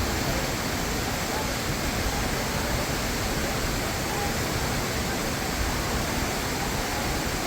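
Rushing water of a mountain river or waterfall: a steady, even rush with no let-up.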